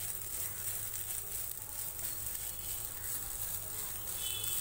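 Grated fresh coconut sizzling in ghee in a nonstick pan while it is stirred and turned with a silicone spatula.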